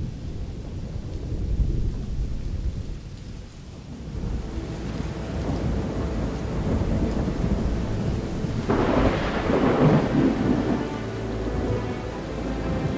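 Thunderstorm: steady heavy rain with rolling thunder, and a louder thunderclap about nine seconds in.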